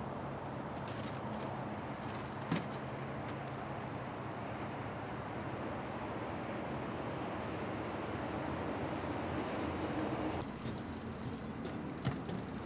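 A steady engine hum under a wash of noise, with one sharp click about two and a half seconds in. The sound changes about ten and a half seconds in.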